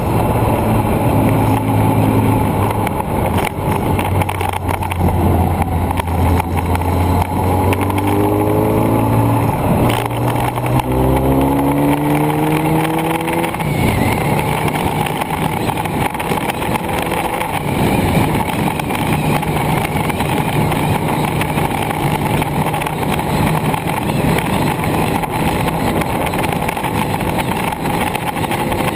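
Engine of the vehicle carrying the camera, heard over steady wind and road rush. Its pitch climbs in steps, as it changes up through the gears, between about 8 and 13 seconds in. After that it holds a steady cruise.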